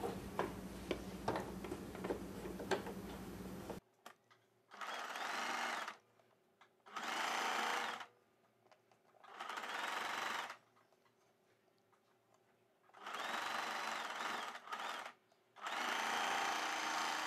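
Small electric sewing machine stitching a seam in five short runs of one to two seconds each, with pauses between. Before it, fabric being handled, with light clicks over a low steady hum.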